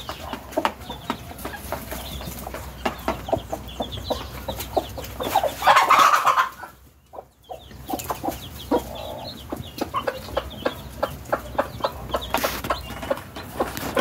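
Young chicks peeping rapidly and continually, mixed with a hen's clucking; a louder call stands out about six seconds in, and the sound drops out briefly about a second later.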